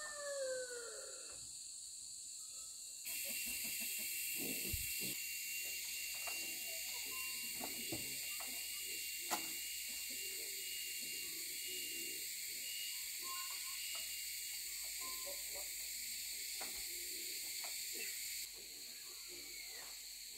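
A rooster's crow trails off in the first second. Then comes a steady high-pitched hiss with a thin, even whistling tone, starting suddenly about three seconds in and stopping near the end, over faint scattered clicks and knocks.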